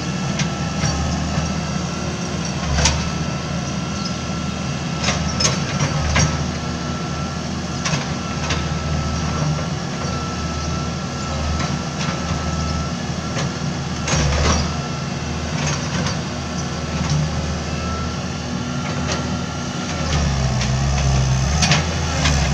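Hitachi EX90 wheel excavator's diesel engine running while the machine works its boom and bucket, with a steady high whine and a few sharp knocks. The engine grows louder near the end as the whine stops.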